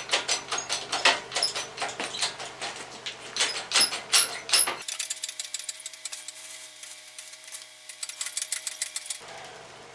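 Rapid metallic clinking and rattling of hand tools and metal parts being handled on the engine. About five seconds in, it abruptly thins to fainter, lighter clicking.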